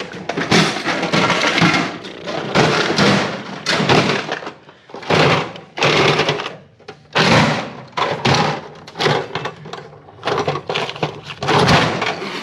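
A fork seal driver striking repeatedly down the fork tube of a 2021 Yamaha YZ250F to seat a new fork seal. It makes a run of irregular metal thunks, about one or two a second, each with a short ring.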